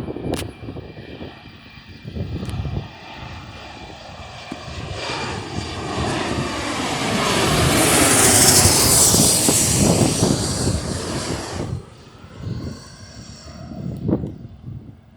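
Jet airliner passing by: its engine noise swells over several seconds to a loud rushing roar with a sweeping, phasing quality, then cuts off abruptly about three-quarters of the way through.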